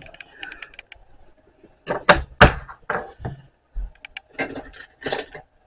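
Hard plastic cylindrical-cell holder brackets knocking and clicking as they are handled and set down on a countertop: a handful of separate knocks, the loudest about two seconds in.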